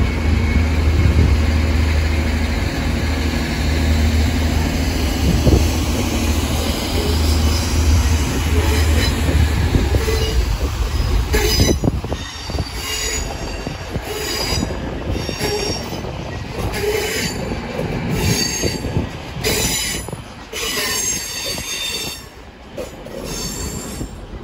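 A train running close by with a steady deep rumble. From about halfway, its wheels give repeated high-pitched squeals.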